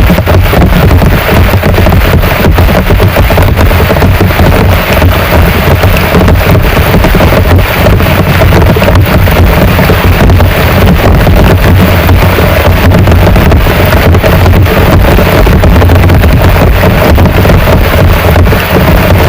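Heavy rain pouring down steadily: a loud, even hiss of rain with a dense patter of drops and a heavy low rumble underneath, without let-up.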